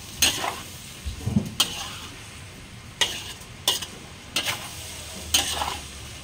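A metal spatula scrapes and tosses food in a stainless steel wok, over a steady sizzle, with about seven sharp scrapes at irregular intervals. The scraping works loose the browned crust stuck to the bottom of the wok.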